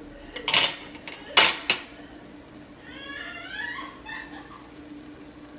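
A spoon knocking against a cooking pot three times, sharp metal clanks in the first two seconds. About three seconds in, a brief high, wavering whine.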